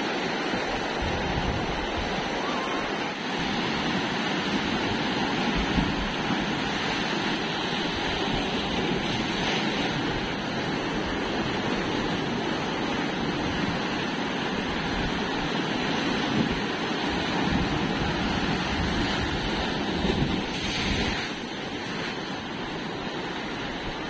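Sea surf washing over rocks, a continuous rush of breaking, foaming water. Wind rumbles on the microphone throughout.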